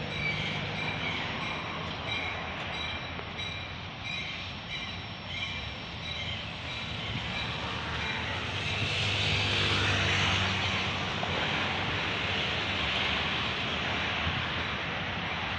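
A work train of loaded gondolas pushed by a diesel locomotive rolls slowly along the track with a steady rumble of wheels on rail and high thin squealing tones. The locomotive's engine grows louder toward the middle.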